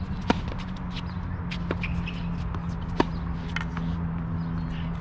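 Tennis ball struck by racket during a rally: two sharp pops about three seconds apart, with fainter knocks of bounces and more distant hits between them. A steady low hum runs underneath.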